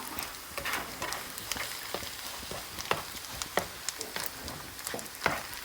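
Eggs frying beside fried rice in a hot pan, a steady sizzle with sharp crackles every second or so.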